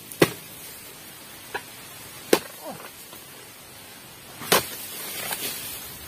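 Sharp cutting strokes of a pole-mounted oil palm harvesting blade biting into frond stalks in the crown: three loud strikes about two seconds apart and a fainter one between the first two, with rustling of palm fronds after the last.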